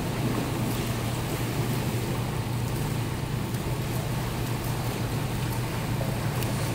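Swimmers splashing through freestyle laps in an indoor pool: an even wash of water noise over a steady low hum.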